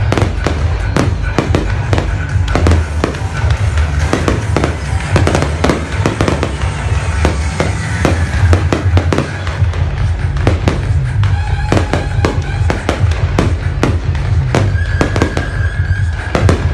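Fireworks going off in a dense, rapid barrage of bangs and crackles, with music playing underneath.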